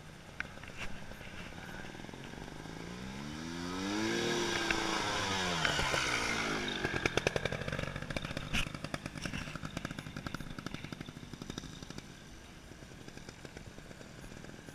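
Beta Rev 3 trials motorcycle riding up and past close by, its engine pitch rising and then falling as it goes by. A rapid clatter follows, then a single sharp knock, and the engine carries on fainter in the distance.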